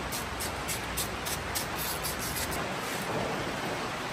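Steady hiss of heavy rain falling, with a quick run of light clicks in the first couple of seconds.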